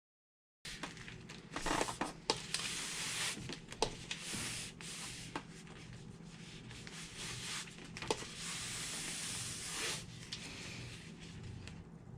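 Hands rubbing and pressing a fabric strap's folded edge down onto narrow double-sided tape, with rustling and small crackles from the tape and its paper backing. It starts after a brief moment of dead silence.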